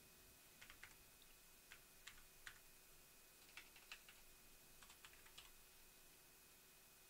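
Faint computer keyboard typing: about ten scattered key clicks, in small clusters, while a command is typed, stopping near the end. A faint steady hum runs underneath.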